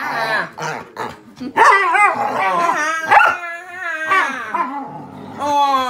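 English Springer Spaniel making play noises during rough play: a string of growls and barks broken by short pauses.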